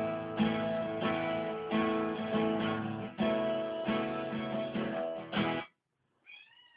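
Strummed acoustic guitar music that starts abruptly and cuts off suddenly after about five and a half seconds, followed near the end by a single short cat meow.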